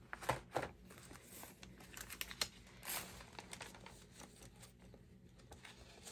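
Paper pages of a journal being turned and handled: a scattering of soft, faint rustles and taps, more of them in the first few seconds.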